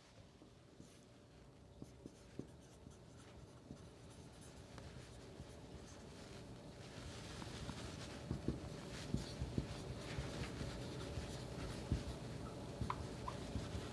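Dry-erase marker writing on a whiteboard: faint strokes and small taps of the tip on the board, growing louder and busier in the second half.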